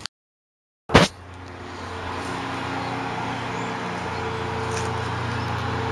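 A sharp knock about a second in, then a motor vehicle engine running with a steady low hum that slowly grows louder.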